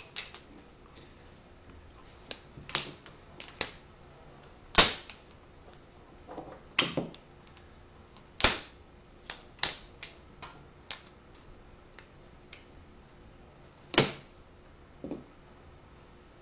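Tegu wooden magnetic building blocks clicking and clacking together as they are set onto a block structure: about fifteen sharp clicks at irregular intervals, the loudest about five seconds in, with others near eight and a half and fourteen seconds.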